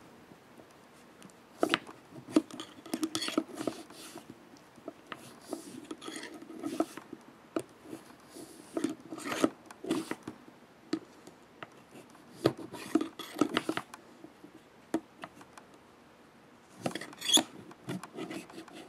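Cleaning rod with a cloth patch pushed in and out of a Smith & Wesson 360 revolver's cylinder chambers: irregular scraping, rubbing and light clicks of the rod against the metal, with a pause of about two seconds near the end.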